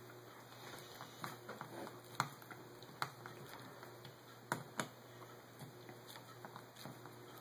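Scattered light clicks and taps of a Holley 600 carburetor body being handled and turned on the bench, with sharper knocks about two, three and four and a half seconds in, over a faint steady hum.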